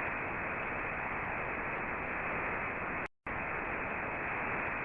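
Steady, dull static hiss with no treble, like a dead broadcast channel, cut to silence for a split second about three seconds in.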